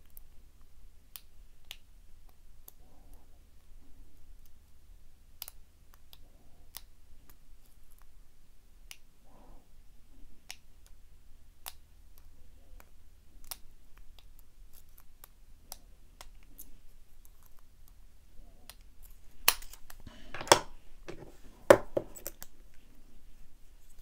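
Light, scattered metallic ticks and clicks of a hook pick and tension wrench working the pin stack of an American Lock 1100 padlock, with three much louder knocks near the end.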